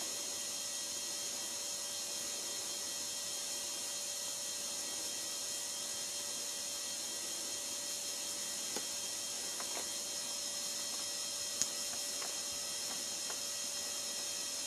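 Steady hiss and hum of the camera's own recording noise, with a few faint clicks past the middle and one sharper click later on.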